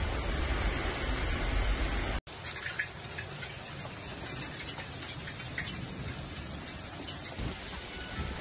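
Hail and heavy rain pouring down, a dense steady hiss. About two seconds in the sound breaks off sharply and gives way to a different recording of the hailstorm, in which hailstones tick sharply and irregularly as they strike hard surfaces.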